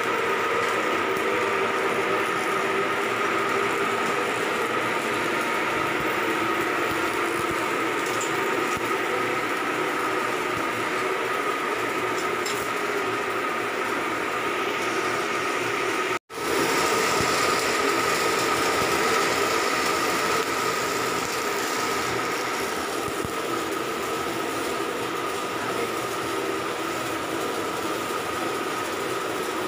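Steady din of running engine-room machinery, with a held hum and a higher whine over it, briefly cutting out for an instant about halfway through.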